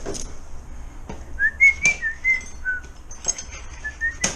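Someone whistling a tune in short stepped notes, with a few sharp clicks in between.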